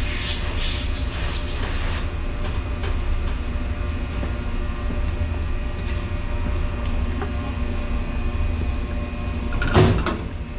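Steady low rumble of background machinery with a faint hum, a brief rasping sound in the first second, and a sharp knock near the end.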